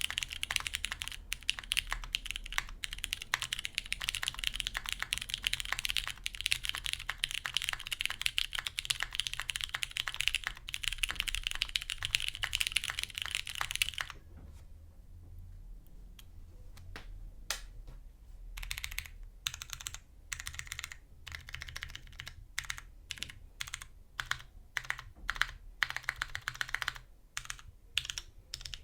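Gasket-mounted mechanical keyboard with lubed Cherry MX ergo clear tactile switches on an aluminium plate under GMK keycaps, being typed on. For about half the time the keystrokes come fast and continuous. After a pause of a few seconds with only a stray stroke or two, slower, separate key presses follow.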